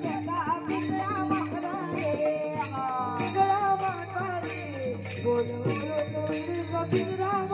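Warkari bhajan music: brass taal hand cymbals clashing in a fast steady rhythm, about three strikes a second, over a drum and a wavering melody line.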